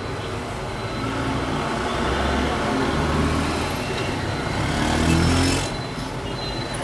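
Busy street traffic with engines running. One vehicle grows louder, its engine rising in pitch, and passes close about five seconds in, then the sound drops away suddenly.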